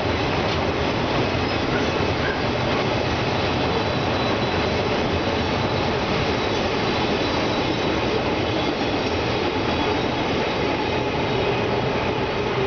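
Union Pacific autorack freight cars rolling across a steel railway bridge: a steady rumble of wheels on rail, with a faint high squeal of wheels over it.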